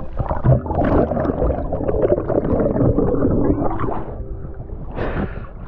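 Underwater bubbling and gurgling picked up by a diver's camera, a dense crackle of bubbles. A brief splash of water comes near the end as the camera breaks the surface.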